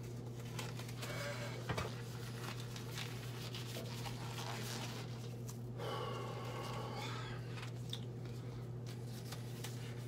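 A steady low hum, with faint rustling about a second in and a man's soft, wavering wordless vocal sound about six seconds in that lasts a second or two.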